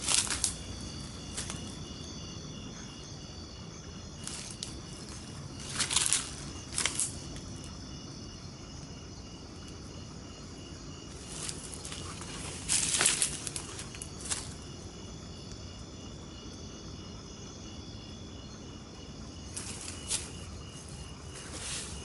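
Crickets and other night insects chirping steadily, one of them a fast pulsed trill. A few short rustling noises break in, the loudest about six and thirteen seconds in.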